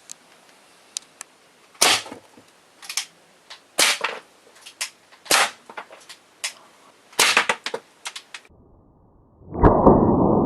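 Plastic airsoft pistol firing single shots, about a dozen sharp cracks at irregular intervals roughly a second apart. Near the end the shots stop and a loud rushing noise sets in.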